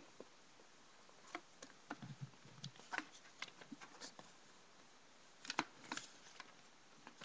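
Paper pages of a LEGO instruction booklet being handled and turned: faint rustling with scattered small clicks, loudest in a short cluster about five and a half seconds in.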